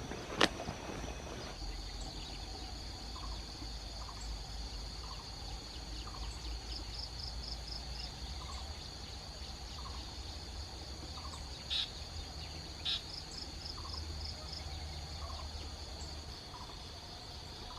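Field ambience: insects droning steadily at a high pitch, with stretches of rapid pulsing, and birds giving short repeated calls, two of them louder near the middle. A single sharp click sounds about half a second in.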